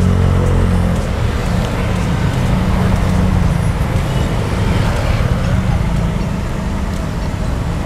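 Road traffic with a motor vehicle engine running close by: a steady low hum over general street noise.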